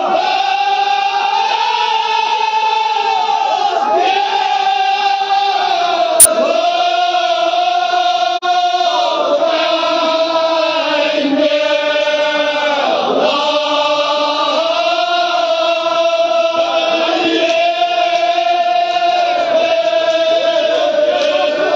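Kashmiri marsiya, a Shia mourning elegy, sung by a group of voices in unison in long, held, wavering notes. A single sharp click about six seconds in.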